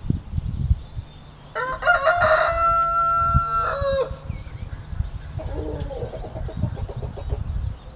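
A rooster crowing once, a single call of about two and a half seconds that starts about a second and a half in, holds a steady pitch and drops off at the end. Fainter fowl calls follow a couple of seconds later, over an irregular low rumbling with thumps.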